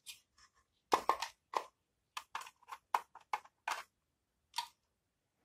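About a dozen short, irregular plastic clicks and knocks from a solar light's housing being handled and fitted back together, most of them packed between one and four seconds in.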